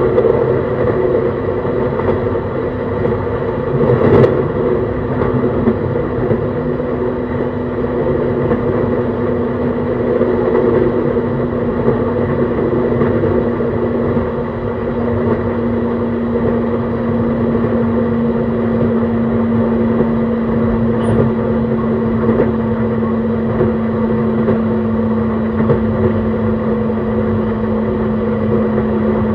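Running noise inside an E131 series EMU on the move: a continuous rumble of wheels on rail, with a steady motor and inverter hum that grows stronger in the second half and a faint high whine. There is one sharp knock about four seconds in.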